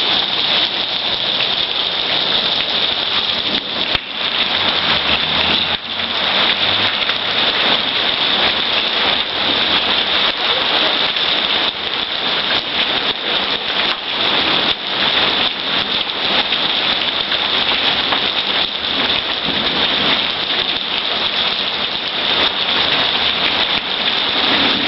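Heavy rain pouring down onto hard surfaces: a loud, steady, dense patter of drops.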